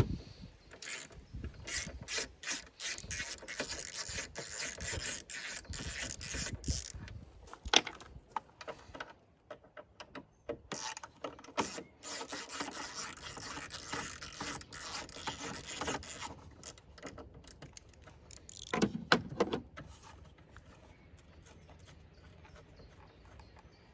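Hand ratchet driver with a Torx 30 bit, clicking rapidly as headlamp retaining screws are undone, in two long runs with a short break between. A brief louder clatter comes about three-quarters of the way through.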